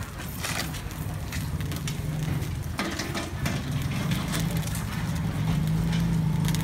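Metal spoon clicking and scraping against a blackened nom krok mould pan as the rice cakes are prised out. Underneath runs a low motor drone that grows louder toward the end.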